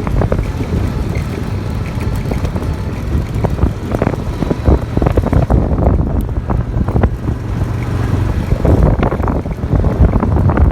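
Wind buffeting the microphone: a loud, irregular low rumble that swells and drops in gusts.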